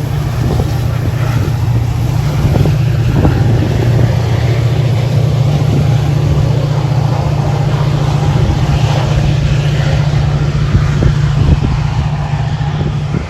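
Diesel locomotive of a Metra commuter train running with a loud, steady low engine drone. Scattered short knocks sound over it.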